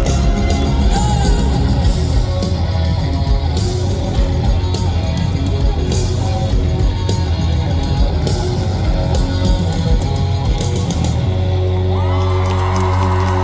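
Live rock band playing an instrumental passage with drums and guitar, heard loud over a concert PA, with some yelling from the crowd. About eleven seconds in, the drums stop and a held chord rings on.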